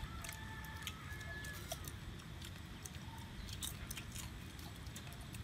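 Shells of small roasted crabs being cracked and picked apart by hand and eaten: scattered sharp crackles and clicks of breaking shell.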